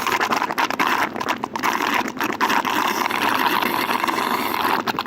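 Running water: a steady splashing hiss with many small crackles through it.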